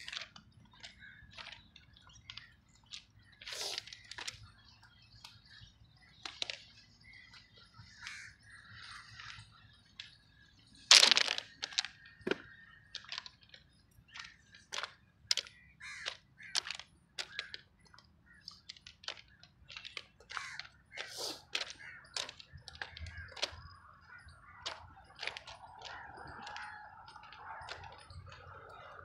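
Irregular crunching steps on the loose stone ballast of a railway track, a short crunch every second or so, with one sharper, louder crack about eleven seconds in.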